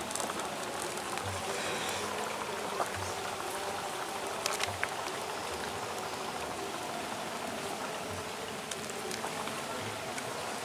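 Steady outdoor hiss of open-air ambience at the water's edge, with a few faint clicks about three and four and a half seconds in.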